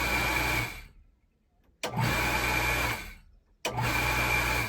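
Small electric pump motor switched on and off in short runs with a steady hum and whine: it stops about half a second in, runs again for about a second near the middle, and starts again near the end. Each run starts suddenly and winds down quickly.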